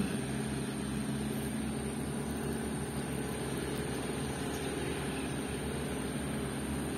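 Diesel dump truck engine running steadily at low revs as the truck creeps slowly over rough, rutted ground.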